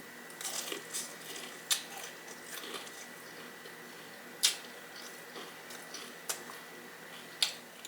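Chewing a bite of crispy-skinned fried chicken tender, with light crackling in the first second and a few sharp mouth clicks spread through.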